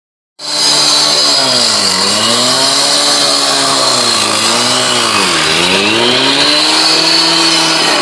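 Handheld gas-powered two-stroke concrete cut-off saw running at high speed, its engine pitch dropping and climbing back twice, with a steady high whine from the spinning blade.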